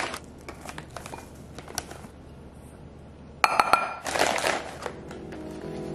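Clinks and taps of a measuring cup and mix box against a glass mixing bowl, with a cluster of sharper clinks and a short glass ring about three and a half seconds in, followed by a soft rush of dry pancake mix going into the bowl. Music comes in near the end.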